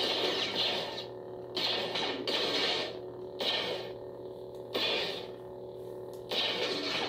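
Electronic lightsaber sound from a replica saber's sound board: a steady hum with swing sounds swelling up and fading about six times as the blade is swung.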